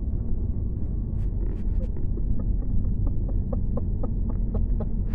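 Steady low rumble of a car driving, heard from inside the cabin. A run of light, even ticks comes in about halfway through, roughly three or four a second.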